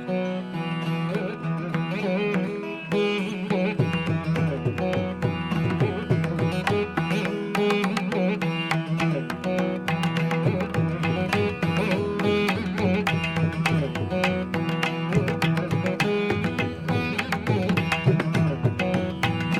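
Instrumental intro music in an Indian classical style: quick melodic notes over a held drone, with a deeper low beat joining about four seconds in.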